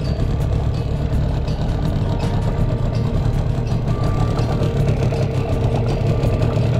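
Hangkai 12 hp outboard motor running steadily as the boat moves under way.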